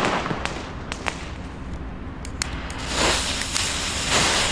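A jet torch lighter clicks a few times, then hisses as its flame lights a firecracker's fuse, which starts to spark from about three seconds in.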